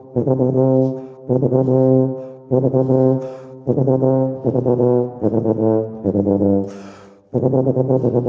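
Tuba playing triple-tongued patterns: about seven short bursts of fast repeated low notes with quick breaths between them. The note drops lower in the bursts after about five seconds in.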